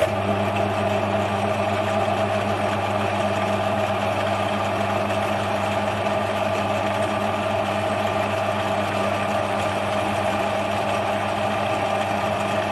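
Metal lathe switched on and running steadily, a constant motor and gearing hum, while a boring bar is fed through the centre bore of a brass flywheel to true it.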